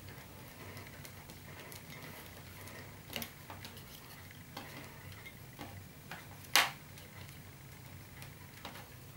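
Rolled paper tubes made from advertising flyers handled and bent upward by hand: faint scattered small clicks, with a louder sharp click about six and a half seconds in.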